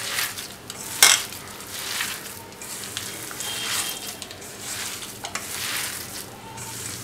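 A hand kneading coarse, damp ground rice-and-chana-dal vada dough in a stainless steel bowl: a grainy rustle with each stroke, about once a second, and one sharp knock about a second in.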